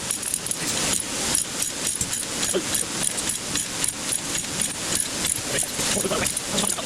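Ratchet load binder being cranked, clicking rapidly and irregularly as it draws up the chain pulling a heavy planer across the floor.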